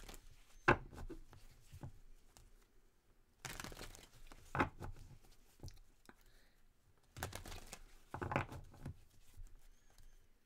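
Tarot deck shuffled by hand: cards slide and slap against one another in three bursts of rustling a few seconds apart.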